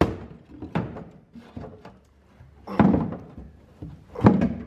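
A series of dull thuds on a car's body panel, struck or pushed from the inside in an attempt to pop a dent out; the blows come at irregular intervals, the heaviest near the end, and the panel does not come out.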